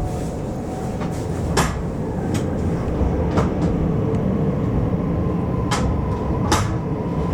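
JR Hokkaido 733 series electric multiple unit train: a steady low rumble, with four sharp clicks or knocks spread through it and a faint steady tone coming in near the end.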